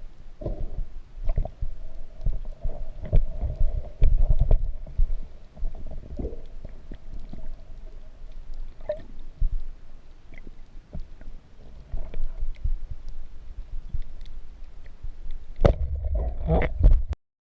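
Muffled underwater sound picked up through a camera's waterproof housing: low rumbling and gurgling of moving water with scattered clicks and knocks, growing louder and busier near the end.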